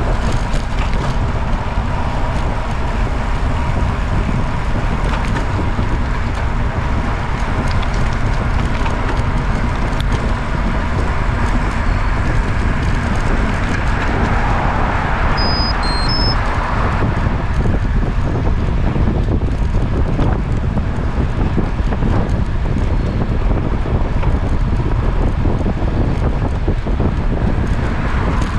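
Wind buffeting the microphone over steady road noise while moving along a road, with a swell of noise about midway through and a few short high chirps at the same time.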